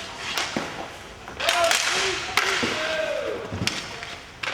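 Inline hockey play: sticks and puck making sharp clacks, several times, with players' voices shouting.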